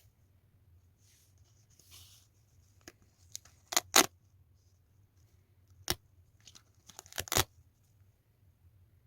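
Packaging being torn open by hand: a few short, sharp tearing strokes, the loudest pair about four seconds in and another pair about seven seconds in.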